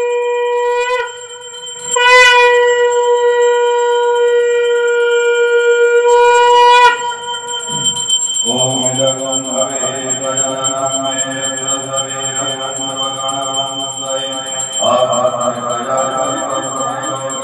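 A conch shell (shankh) blown in long, steady held notes, with a short break about a second in, marking the aarti. About eight seconds in the conch stops and devotional aarti music takes over.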